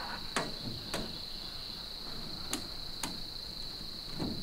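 Polycarbonate roof panel being worked into the gazebo's metal track: sharp clicks, two about half a second apart near the start and two more about two and a half seconds in, then a duller knock near the end. A steady high insect trill runs underneath.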